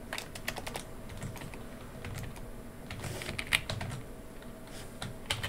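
Typing on a computer keyboard: irregular keystroke clicks in short bursts with pauses between them.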